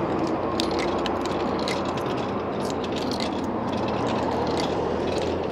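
Coins fed one after another into a vending machine's coin slot, clicking and rattling through the coin mechanism several times a second.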